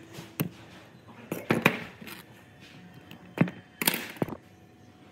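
Workshop handling sounds: a string of sharp knocks as tools and parts are worked on, the loudest about a second and a half in, with a short scraping rush near four seconds.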